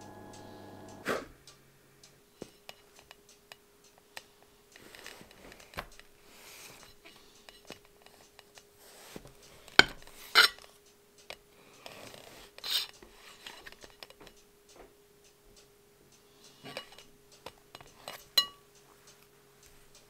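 A large knife cutting through a fondant-iced sponge cake, with scraping and sharp clinks of the blade on the cake board and glass plate beneath; the loudest clinks come about ten seconds in.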